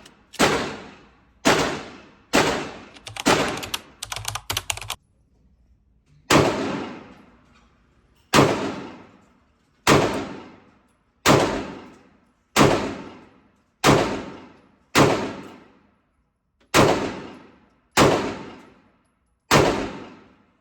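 Glock 43X 9mm pistol fired shot by shot, about fourteen shots roughly a second or so apart, each ringing off with a long echo of the indoor range booth. A quick run of light clicks comes about four seconds in, just before a short pause in the shooting.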